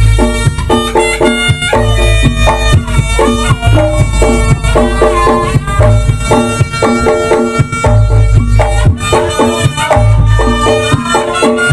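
Live Reog ensemble music: a reedy, piercing shawm melody with bending notes over drums and repeated deep low gong-like strokes.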